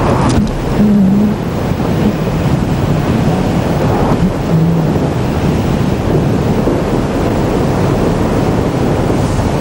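Wind rushing over the microphone of a camera mounted on a hang glider's wing in flight: a loud, steady, deep rumble of airflow noise.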